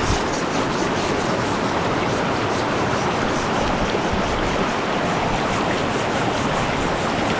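Steady rush of flowing river water, an even hiss with no distinct knocks.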